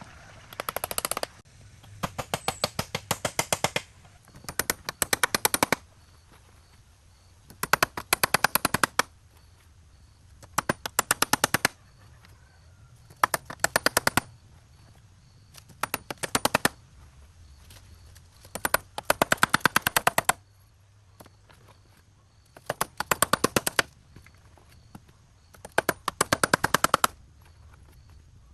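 A power tool hammering in short bursts of rapid impacts, each burst lasting about a second, repeated every two to three seconds.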